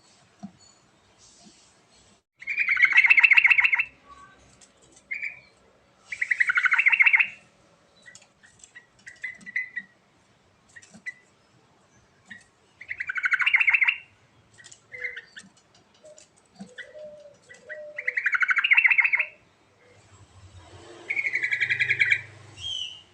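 Yellow-vented bulbul singing: five loud phrases of quick notes, each about a second and a half long and a few seconds apart, with short chirps in between.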